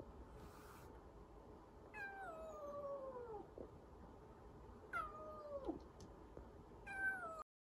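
Kitten giving three drawn-out meows, each sliding down in pitch, the first the longest at about a second and a half. Before them, a short faint hiss comes within the first second: the defensive hissing of a wary rescued kitten.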